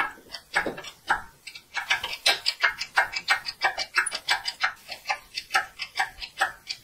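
Rapid mechanical clicking, about four to five clicks a second, from the engine hoist being worked to lift a Triumph TR4 engine out of the car.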